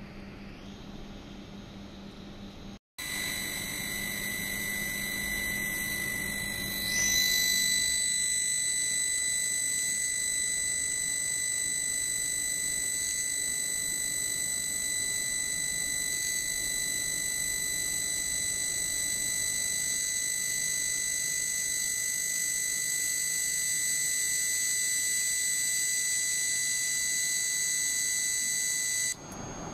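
Fiber laser tube-cutting machine running while it cuts a steel tube held in a rotary chuck: a steady high-pitched whine over a hiss. The whine rises and gets louder about seven seconds in, and the sound cuts off suddenly near the end.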